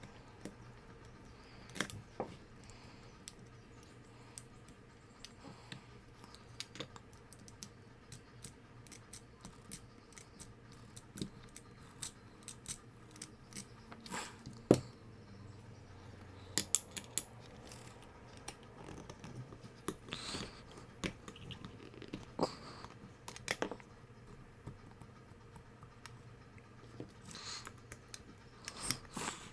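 Scattered small clicks, taps and clinks of hand tools and small metal parts as a generator carburetor is unscrewed and taken apart, with a faint steady hum underneath.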